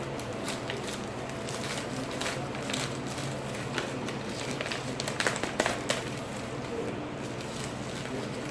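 A shipping package being opened and handled: scattered crackles and clicks of cardboard and packaging, with a burst of louder sharp clicks and rips a little past halfway.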